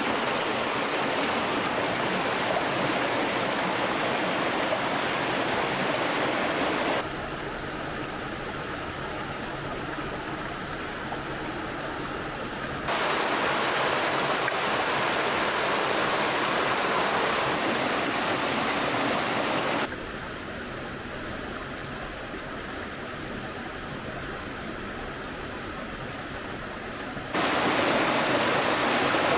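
Steady rush of a running stream. It drops abruptly in level about seven seconds in, comes back up at about thirteen seconds, drops again at about twenty, and rises again near the end.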